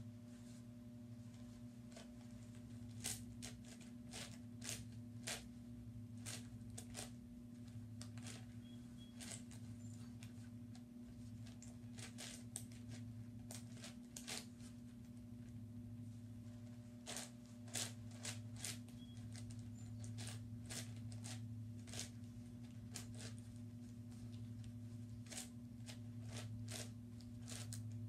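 Plastic layers of a YuXin 9x9x9 puzzle cube clicking and clacking as they are turned by hand, in irregular runs of quick turns with short pauses, over a steady low hum.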